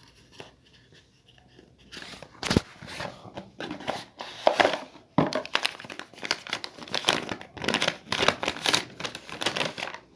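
Paper medicine leaflet being pulled out of its box and handled, crinkling and rustling in quick irregular bursts that start about two seconds in.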